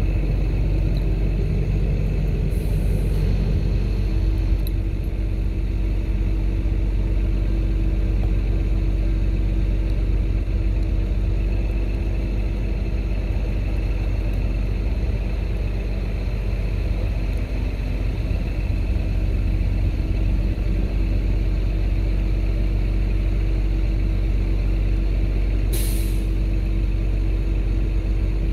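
An engine running steadily, a low drone with a constant hum over it, with one short, sharp hiss about 26 seconds in.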